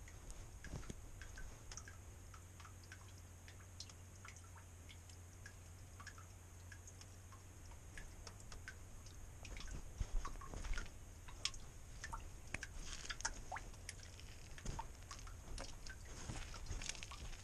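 Faint, irregular clicks and rustles from a GoPro worn by a cat as the cat moves, its fur brushing against the camera. The clicks come thicker and louder from about ten seconds in, over a faint low hum in the first half.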